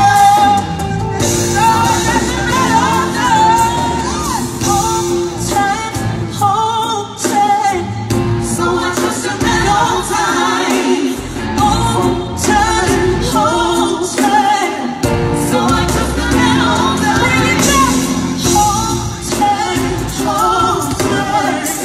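Music with singing, played loud and heard across a large hall.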